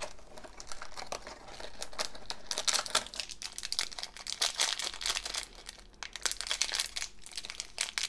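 Shiny plastic blind-bag wrapper crinkling as it is handled and torn open by hand: a dense run of crackles, with a short lull about five seconds in.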